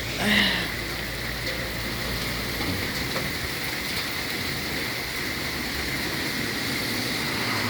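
Heavy rain falling steadily, a continuous hiss. A brief, louder sound comes about half a second in, and a low rumble fades out about three seconds in.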